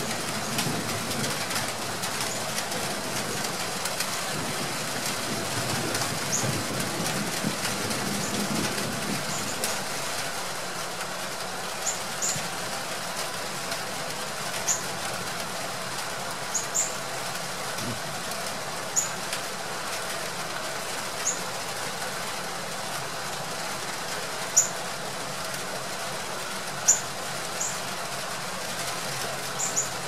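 Steady hiss of rain with a low rumble of distant thunder that rolls through the first ten seconds or so and fades. Over the rest come a dozen or so short, high chirps, scattered at irregular gaps.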